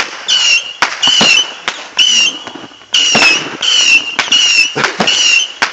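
Fireworks going off in quick succession: a steady series of short whistles, each dipping slightly in pitch, about one and a half a second with a brief pause midway, mixed with sharp pops.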